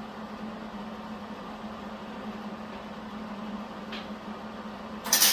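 A steady low hum, then near the end a MIG welder strikes a tack weld: a sudden loud, even crackling hiss begins.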